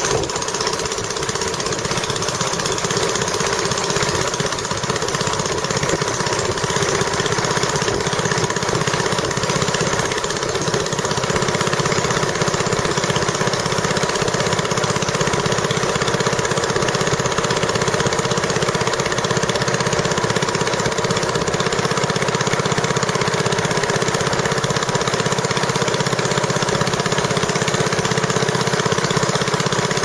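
Small tour boat's engine running steadily while the boat is under way.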